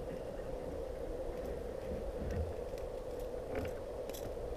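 Faint clicks and rattles of pliers working a jerkbait's hooks out of a smallmouth bass's mouth, over a steady hum.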